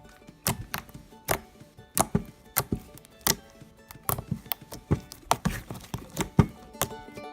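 Slime being pressed and played with by hand, giving sharp, irregular clicks and pops, roughly two a second, over soft background music.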